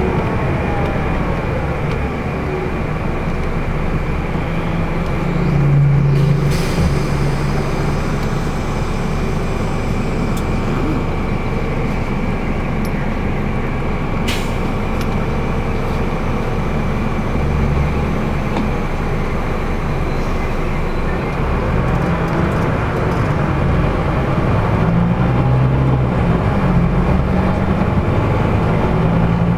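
Cabin of a LiAZ-5250 intercity bus cruising on a highway: a steady engine drone under road and tyre noise. The drone swells about six seconds in, and there is a single sharp click about halfway through.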